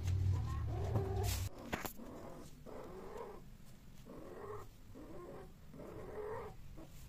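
Mating long-haired cats making low, repeated moaning calls, roughly one a second. In the first second and a half a low rumble and two sharp clicks sound under them.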